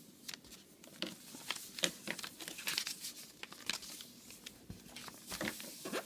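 Printer paper being folded and creased by hand: irregular crackles and rustles as a fold is pressed flat and smoothed down.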